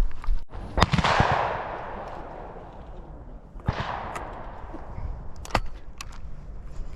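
Two shotgun shots about three seconds apart, the first the louder, each echoing away, followed by a few lighter sharp clicks.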